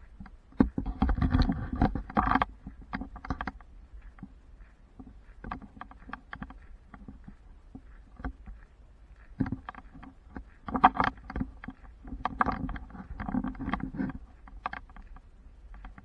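Irregular rustling and scraping close to the microphone of a body-worn camera, with sharp clicks, coming in bursts about a second in and again from about nine seconds in.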